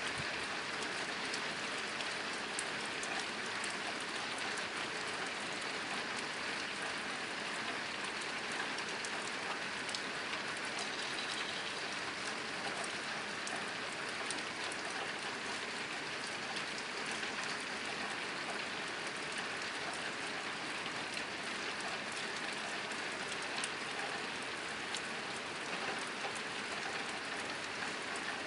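Steady rain drumming on a tin roof: a dense, even patter of drops striking the metal.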